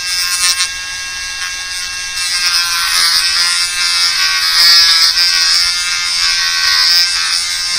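Dremel rotary tool run at low speed with a steady whine, its sanding disc lightly grinding a hard plastic lure body; the grinding hiss grows louder from about two seconds in.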